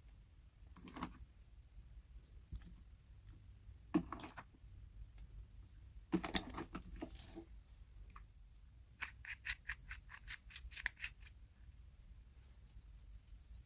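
Scissors cutting slime into small pieces, heard faintly: a few scattered sticky crackles and taps, then a quick run of about a dozen snips near the end.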